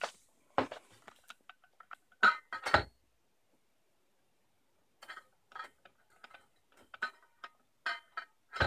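Scattered light clinks and knocks from a metal saw blade and angle grinder being handled. Two louder knocks come a couple of seconds in, then a quiet pause, then a run of small clicks.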